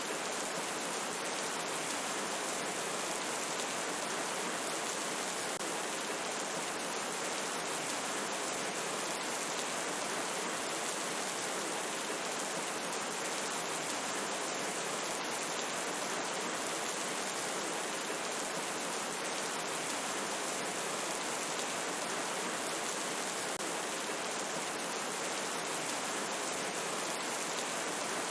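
Steady rain falling, an even hiss with many small patters of drops.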